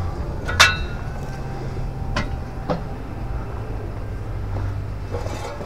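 A few sharp metal clinks that ring briefly, the clearest about half a second in and two more around two seconds in, over a steady low engine hum.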